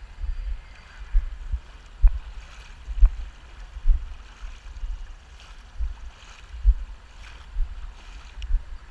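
A small hand-propelled boat moving through floodwater: water swishing with each stroke, and low thumps on the camera's microphone about once a second.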